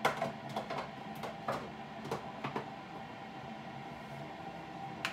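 Plastic clicks and knocks of a Keurig coffee maker's water-reservoir lid being handled and fitted back on: a run of sharp clicks in the first three seconds and one more near the end, over a faint steady hum.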